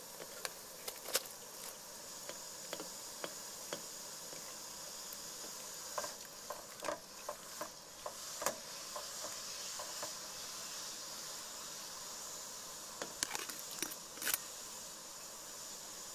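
A metal ladle knocks and scrapes against a large aluminium cooking pot as broth is stirred and vegetables are dropped in: irregular clinks, with a burst of them about halfway through and another near the end. A steady high hiss runs underneath.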